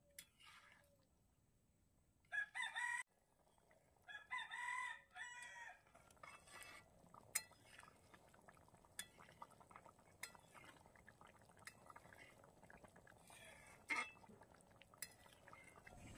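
A rooster crows: a short call about two seconds in, then a longer one around four seconds in. After that come only faint, scattered ticks and pops.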